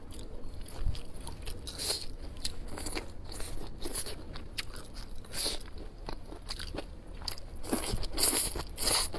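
A person chewing and biting food close to the microphone, with irregular crisp crunches and clicks, the loudest near the end.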